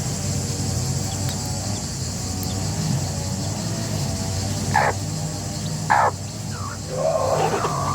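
Chickens calling: two short, sharp squawks about five and six seconds in, then a louder, harsher call starting near the end, over a steady low hum.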